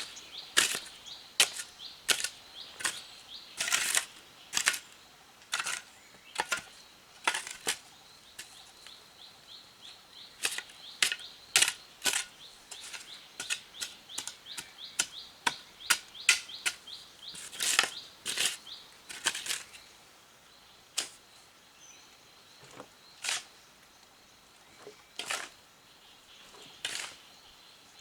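A string of irregular sharp clicks and knocks, about one or two a second, some louder than others. A faint run of quick, high chirps is heard in the first half.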